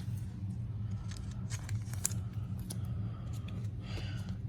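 Trading cards being flipped and slid against one another in the hand: a run of soft clicks and scrapes, over a steady low hum.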